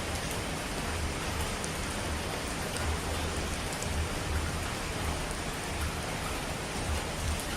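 Steady dense rushing of falling water, like heavy rain or a waterfall, with a low rumble underneath that swells and fades.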